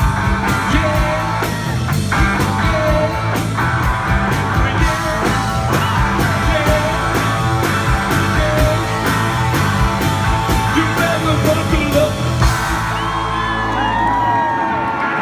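Live rock band playing the end of a country-rock song, with drums keeping a steady beat and electric guitar. About twelve seconds in, the drums stop and a final chord rings on while the audience starts cheering and whistling.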